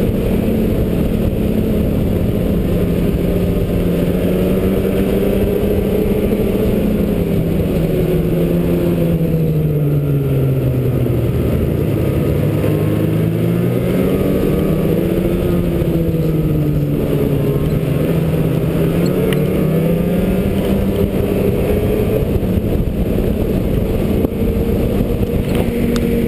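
Snowmobile engine running at trail speed under a steady rush of wind and track noise. Its note drops about ten seconds in as the throttle eases, then climbs back up a few seconds later.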